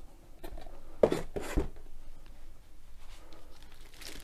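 Hands handling a rolled diamond-painting canvas in a sealed plastic bag: the plastic rustles and rubs, with two brief louder scrapes a little after a second in.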